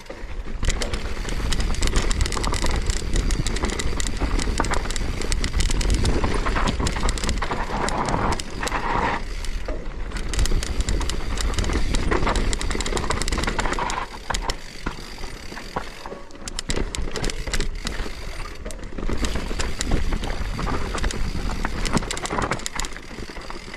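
Mountain bike being ridden over a rough, loose dirt trail: tyres grinding over dirt and gravel and the bike clattering and rattling, with a heavy rumble of wind on the microphone. It eases off briefly a little past halfway, then picks up again.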